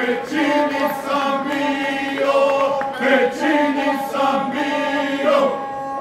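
Men's folk choir singing a traditional source-style (izvorno) song, several voices together holding long notes. The voices stop shortly before the end, leaving the bowed gusle sounding alone.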